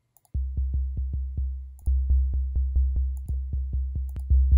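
Low sine-wave bass from Ableton's Wavetable synth, run through the Amp and Cabinet effects, playing a quick run of short repeated notes, about four or five a second, each starting with a click. It gets louder in two steps, about two seconds in and again near the end.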